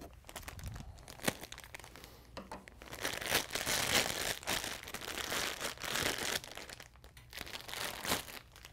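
Clear plastic packaging bag crinkling and rustling as it is pulled open and off a metal TV pedestal stand. It is loudest in the middle few seconds.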